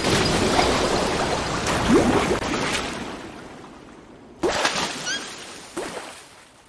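Flood water rushing and gurgling, fading away after about three seconds, followed by a few separate splashes of water, each dying away.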